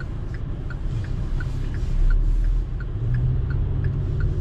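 Inside a car: steady engine and road rumble that swells as the car moves off, with the turn-signal indicator clicking in the cabin about three times a second in an alternating tick-tock.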